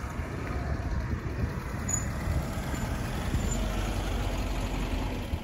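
A car's engine running as it drives up and stops alongside at the roadside, a steady low rumble.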